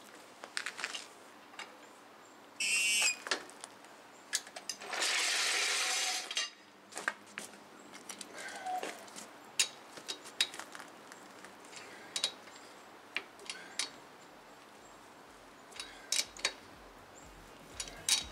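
Metal tools and wheel hardware clinking and clanking at the truck's front wheel, with a short mechanical whir about 3 seconds in and a longer rushing noise lasting about a second and a half around the 5-second mark.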